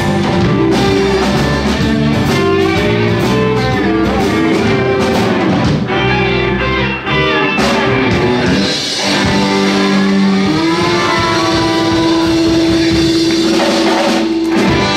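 Live blues band with two electric guitars, electric bass and drum kit playing a boogie, then holding one long sustained note from about two-thirds of the way in, with drum hits near the end as the song closes.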